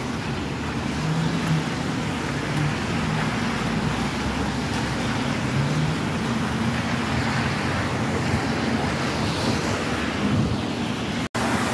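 Steady street traffic on a rain-wet road: passing cars, engine hum and tyre noise on wet asphalt. The sound cuts out for an instant near the end.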